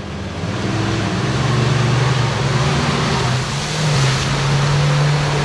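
An off-road 4x4's engine revving hard under load through deep mud. Its pitch climbs over the first three seconds and is then held high, over a steady rushing noise from the spinning tyres and mud.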